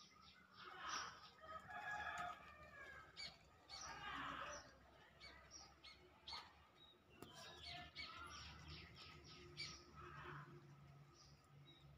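Faint birdsong: several small birds chirping and twittering in short repeated calls.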